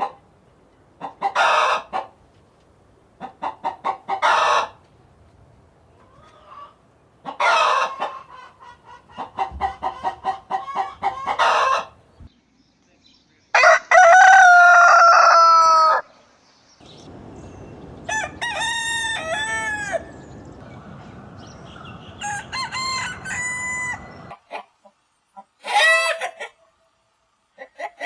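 Chickens clucking in a run of short bursts, then a rooster crowing loudly about halfway through, followed by more crowing and calls over a faint background hiss.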